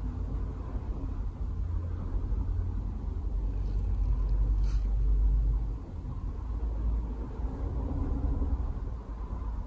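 Low, steady background rumble, swelling for a second or two around the middle.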